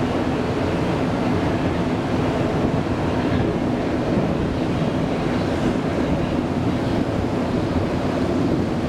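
A jet airliner's engines, a steady deep roar with no clear rise or fall.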